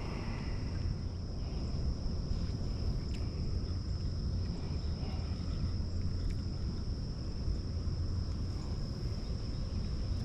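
Steady high-pitched chirring of an insect chorus, likely crickets, over a constant low rumble, with a few faint ticks.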